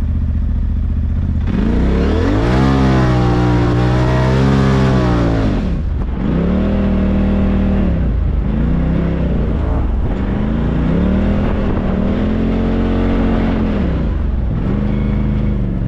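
Side-by-side UTV engine accelerating from a standstill over sand dunes: it revs up about a second and a half in and holds for a few seconds, then drops and comes back on the throttle in several rising and falling pulls, over a steady low drone.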